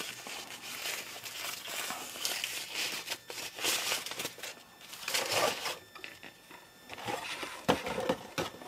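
Soft white wrapping crinkling and rustling as hands unwrap a camera body, with a single light knock near the end.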